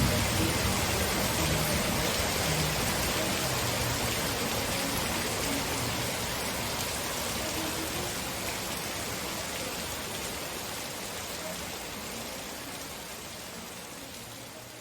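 Steady hiss of rain, slowly fading out over the whole stretch.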